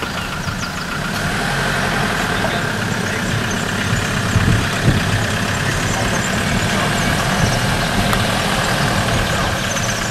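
Land Rover Defender pickup's engine running steadily at idle.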